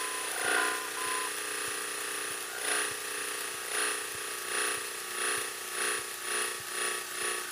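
Cessna's piston engine running at low power while taxiing, heard through the headset intercom as a steady drone, with a few short beeps in the first second and rhythmic swells that come faster toward the end.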